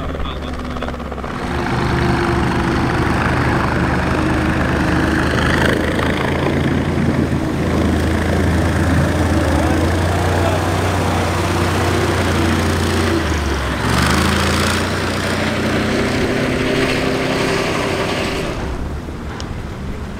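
BRDM-2 armoured car's V8 petrol engine running under load, a steady low drone, as the vehicle swims and drives up out of the water. Around two-thirds through the engine note dips and then rises again, and it eases off near the end.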